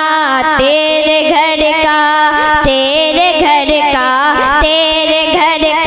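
A boy's solo voice singing a naat into a microphone, drawing out long melodic notes with wavering, ornamented turns.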